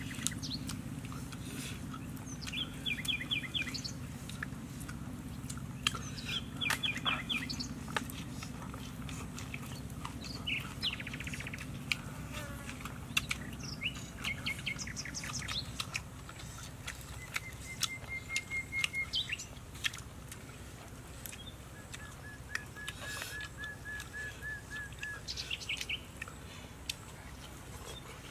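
Birds calling: repeated short chirps and two long, even trills of evenly spaced notes. Underneath are a low steady hum that drops about halfway and scattered small clicks.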